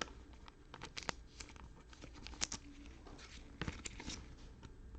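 Faint handling of trading cards and crinkly cello-pack wrappers: soft rustles and scattered light clicks, a couple of them louder around the middle.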